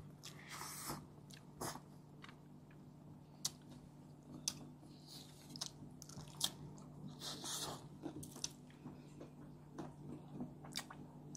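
Faint chewing and biting of food: wet mouth sounds with scattered short clicks and soft crunches, over a low steady hum.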